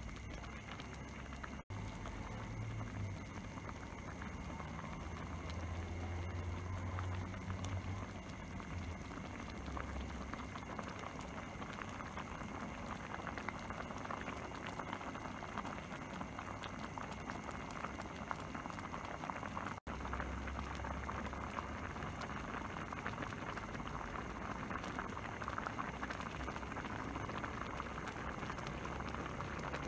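Broth of a spiny-eel and fermented bamboo-shoot curry boiling steadily in a pot, a continuous bubbling and popping while the fish cooks through before seasoning. The sound cuts out for an instant twice.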